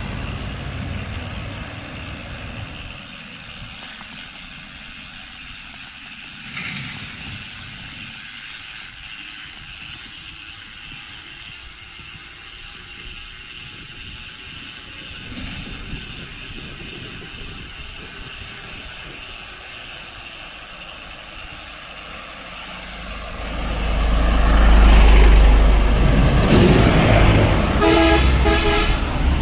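Road traffic on a highway: mostly a low steady road hiss, then a vehicle passes close with a deep rumble that swells and fades about three-quarters of the way through. Near the end a vehicle horn gives a quick run of short toots.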